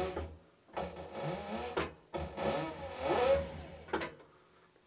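Aurora A-801 leather skiving machine running with no leather in it: its servo motor spins the round bell knife and the abrasive feed roller. It spins up and winds down twice as the pedal is pressed, with a rising then falling whine on the second run.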